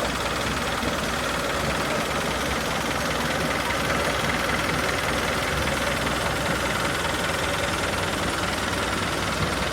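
An engine running steadily at an even pitch and level, with a constant hum.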